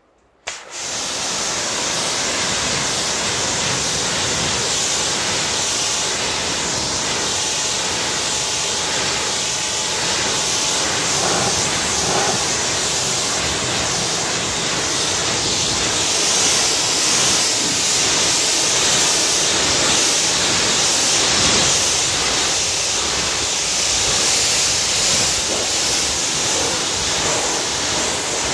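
Kärcher pressure washer spraying a jet of water onto car paintwork and a wheel: a loud, steady hiss of spray that starts about half a second in.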